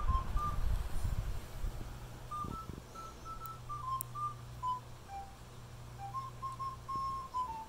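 A simple tune of short, pure beep-like notes stepping up and down in pitch, over a steady low hum. There is low rustling in the first second or two.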